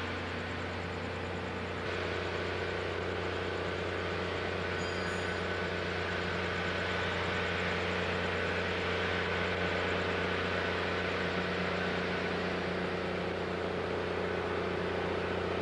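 Steady drone of an engine running at idle, with a low hum under it.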